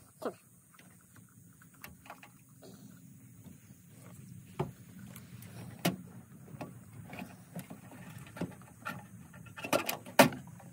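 Scattered sharp plastic clicks and knocks as the housing of a new Oregon Speed Feed trimmer head is pried at with fingers and a small flathead screwdriver, the loudest cluster near the end. A low steady hum runs underneath.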